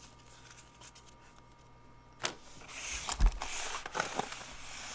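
Faint handling of a stack of trading cards, then a sharp click a little past two seconds in. After that comes a cardboard trading-card box being handled and shifted on a tabletop: rustling and scraping, with a thud about three seconds in.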